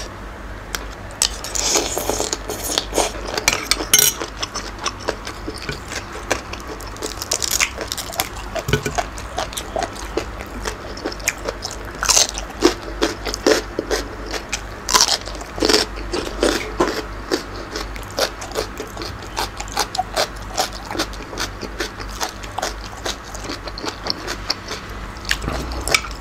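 Close-miked chewing and crunching of a spicy seafood salad with squid, in rapid irregular crackles, with a metal spoon scraping and clinking on the plate.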